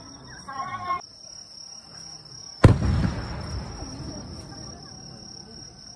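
An aerial firework shell bursting with one sharp boom about two and a half seconds in, its rumble dying away over the next second or so.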